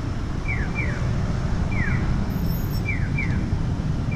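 Japanese audible pedestrian crossing signal chirping: short, high, bird-like chirps that fall in pitch, a single chirp alternating with a quick pair about every 1.2 s. Under it runs a steady low street rumble.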